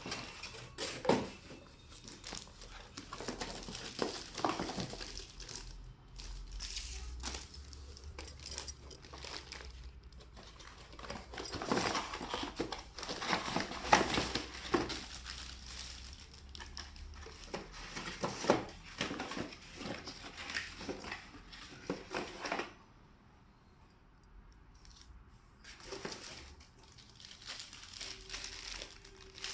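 Packaging being handled during unboxing: plastic wrapping and packing material crinkling and rustling in irregular bursts, with a quieter pause about three-quarters of the way through.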